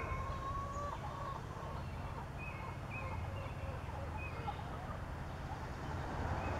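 Outdoor ambience: a few short, high bird chirps scattered over a low steady hum.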